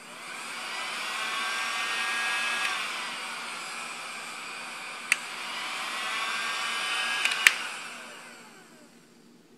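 UltraHEAT II heat gun's fan motor whirring as it is switched between airflow settings: it spins up with a rising whine, drops to a lower speed about three seconds in, and after a click of the switch speeds up again. A second click near the end and the whir winds down and fades out.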